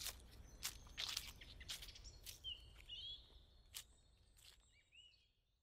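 Faint forest ambience: irregular crunching footsteps on the forest floor and short bird chirps, fading out near the end.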